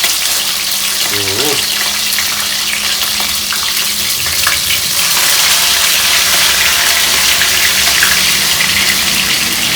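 Chicken pieces frying in hot oil in a pot, sizzling with a steady, even hiss.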